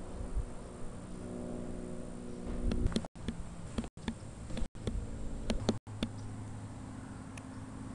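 Steady low mechanical hum holding several pitches, with a deeper tone that grows stronger about two-thirds of the way in. A few sharp clicks, and the audio cuts out completely for split seconds four times.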